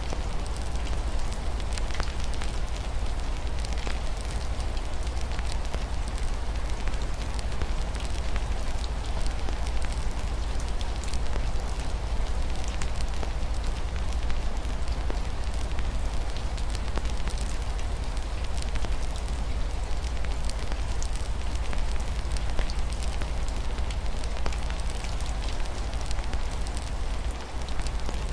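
Fireplace fire crackling, a steady stream of small pops over a hiss of rain on a window, with a constant low rumble underneath.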